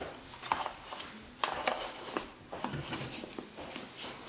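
Hands fitting and pressing the plastic lids onto a two-tier Monbento bento box, making a scatter of light clicks and taps.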